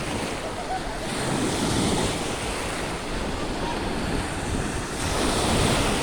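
Sea waves washing onto the shore of the Azov Sea, surging louder about two seconds in and again near the end.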